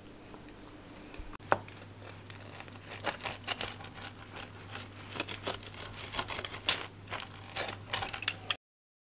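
Rotary pizza cutter rolling through a baked pizza, its crust crackling in a run of small irregular clicks and crunches. The sound starts about a second and a half in and cuts off abruptly near the end.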